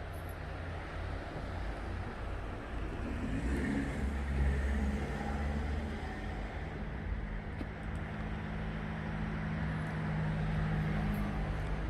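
Motor vehicle engine running with a low steady hum and rumble, which swells for a couple of seconds about three to four seconds in.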